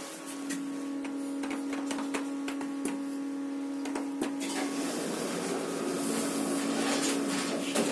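Schindler Eurolift, a machine-room-less lift, running, heard from the car: a steady hum with scattered small clicks. A rushing noise swells over the second half.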